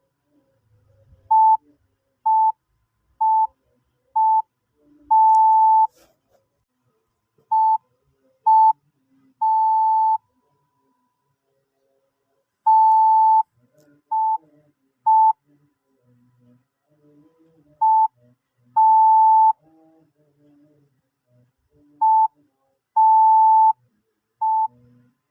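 Morse code sounded as a single steady beep tone just under 1 kHz, keyed in short and long beeps (dots and dashes) at a slow practice pace, with longer pauses between the letter groups.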